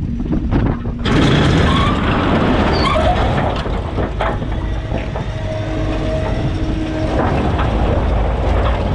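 Telehandler diesel engine running under load as its bucket shoves into a heap of split firewood on a concrete pad, the logs clattering and scraping, the noise jumping up about a second in. A brief squealing tone sounds about six seconds in.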